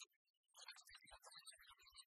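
Near silence, with only faint, patchy digital noise.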